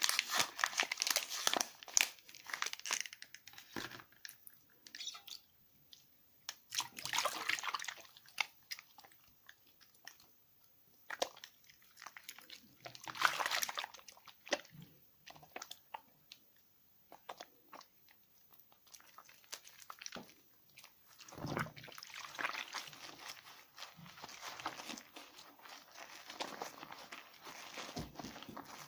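A bar of soap being lathered in wet hands: close squishing, rubbing and crackling of soap and foam. It comes in bursts separated by quieter pauses, then runs on more steadily and more softly for the last several seconds.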